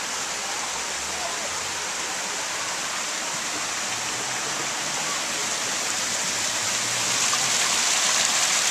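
Steady rush of falling water from a waterfall, growing louder about seven seconds in.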